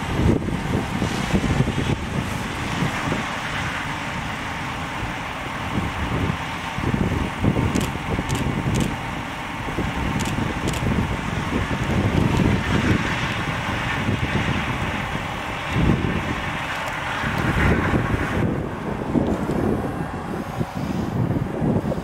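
Claas Lexion 770 combine harvester running under load as it harvests corn with its 8-row picker header: a steady machine drone, with gusts of wind buffeting the microphone. About 18 seconds in the sound turns abruptly duller.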